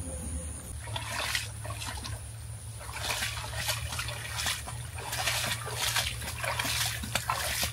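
Water splashing and trickling, with scattered small knocks, over a steady low hum.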